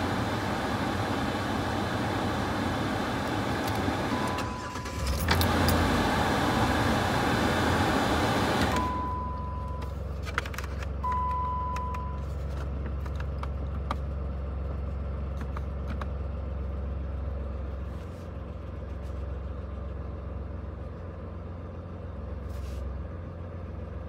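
Sounds inside the Jeep Liberty's cabin. A loud steady rushing noise cuts off sharply about nine seconds in, with three short electronic beeps around that point. A low steady hum and a few faint clicks remain afterwards.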